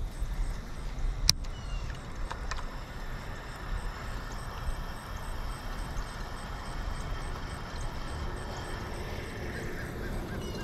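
Steady low outdoor rumble, with one sharp click about a second in and a couple of fainter ticks soon after.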